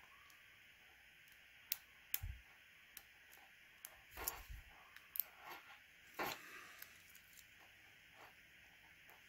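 Faint, scattered small metallic clicks and light scrapes of a lock pick and tension wrench working the pins in the keyway of a Regal 3035A gun lock.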